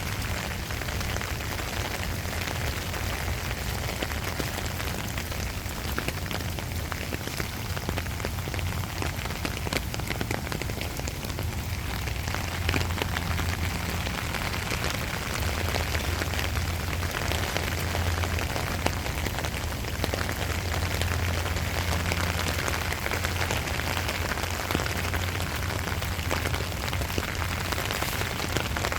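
Steady rain falling on surfaces, with many small drops ticking, over a low steady hum.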